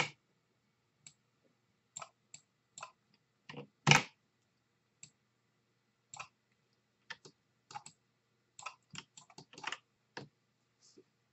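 Computer keyboard keys and mouse buttons clicking in an irregular, scattered run, the loudest click about four seconds in: the keystrokes and clicks of duplicating objects with the Ctrl+D shortcut and moving them in 3D software.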